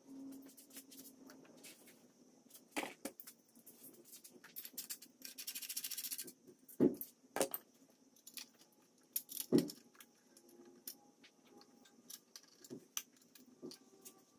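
Light metallic clinks and jingling of loose header bolts being handled, with a few sharper metal knocks about halfway through as a ceramic-coated steel exhaust header is set against the engine's cylinder head.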